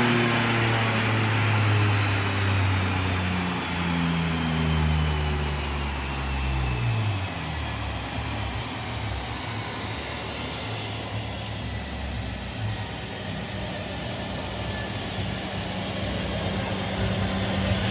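Holden VN Commodore's 3.8-litre V6 on a chassis dyno coming off a power run: the engine note falls steadily in pitch for about seven seconds. After that there is a steady hum and rushing noise, with a faint whine slowly dropping as the dyno rollers wind down.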